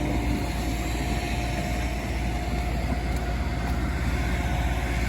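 Heavy diesel equipment idling: a steady low engine rumble with a faint, steady whine above it.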